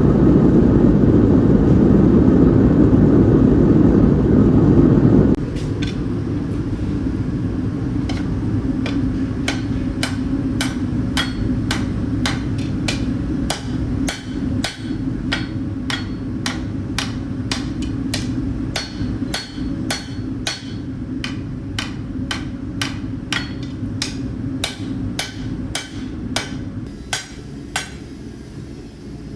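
A forge roaring loudly for the first few seconds. Then a hand hammer strikes hot steel on an anvil about twice a second, each blow ringing, as the end of the bar is flattened.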